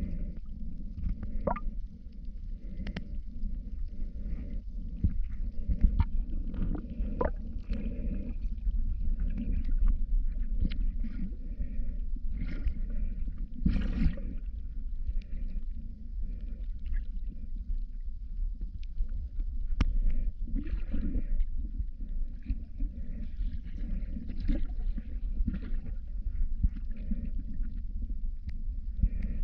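Muffled underwater rumble and water movement picked up by a smartphone microphone sealed in a waterproof case, with scattered faint clicks and crackles.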